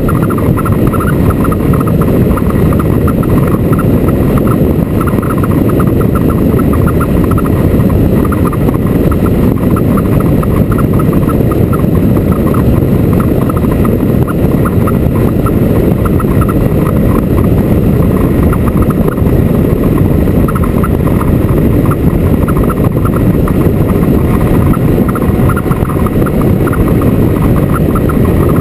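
Motorcycle riding along: loud, steady wind rush and engine noise.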